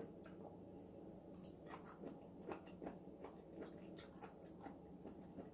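Faint, irregular crunchy clicks of someone chewing blanched geoduck clam.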